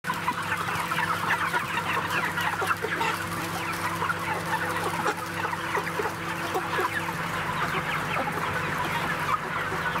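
A large flock of broiler chickens clucking and chirping, many short overlapping calls, over a steady machine hum.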